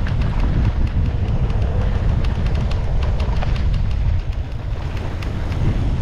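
Wind buffeting the microphone of a camera on a mountain bike riding fast down a dirt trail, a steady low rumble, with tyre noise on the dirt and many scattered small clicks and rattles from the bike.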